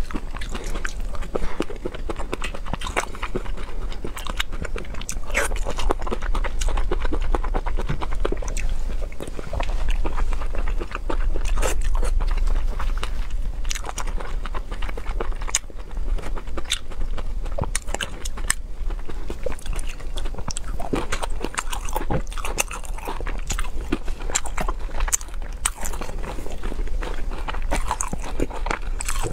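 Close-miked eating sounds: a person chewing and biting through glazed baby octopus, with many small, sharp, irregular mouth clicks throughout.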